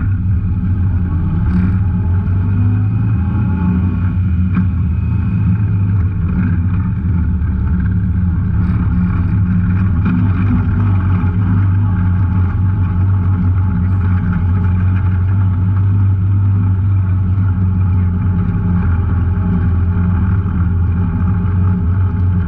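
Off-road vehicle engine running steadily on a trail ride, a continuous low drone whose pitch rises a little a few seconds in.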